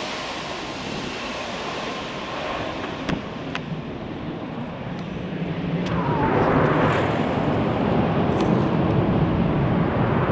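Twin-engine jet airliner's engines, a steady rushing noise fading as it flies away on final approach. From about halfway the engine noise swells louder again with a falling whine around the time of touchdown on the runway.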